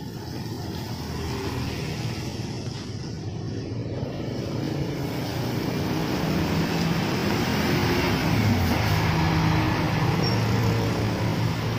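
Tour bus's diesel engine running as the bus approaches and passes close by, growing louder as it goes past, with tyres hissing on the wet road.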